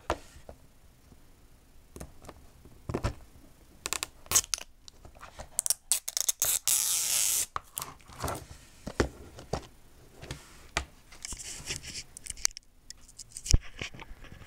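A plastic Blu-ray case being handled and opened: scattered clicks, taps and scrapes of the plastic, a drawn-out tearing sound about six seconds in and a shorter one later, and a sharp click near the end.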